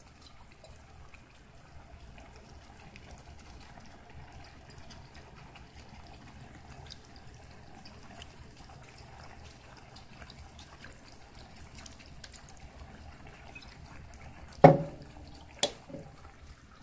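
Fish sauce poured in a thin stream from a bottle into a pan of cooking chicken: a faint, steady trickle. Two sharp knocks, about a second apart, near the end.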